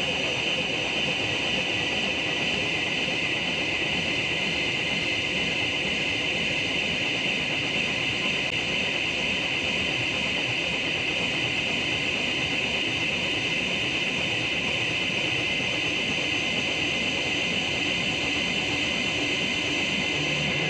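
Steady, dense noise texture from the piece's original soundtrack, with a strong hiss in its upper part and no beat or melody.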